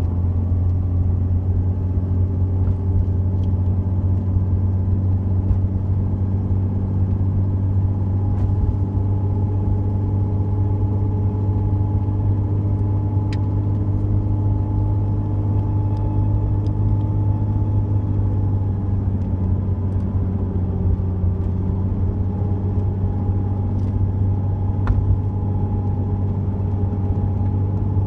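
Jeep Cherokee XJ driving at a steady pace: a low, even engine drone with road and tyre noise, its pitch drifting slightly now and then as the engine speed changes.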